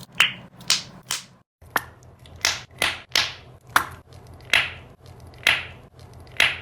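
Slime being pressed and poked, giving a series of sharp, sticky pops about two a second, with a brief break about a second and a half in.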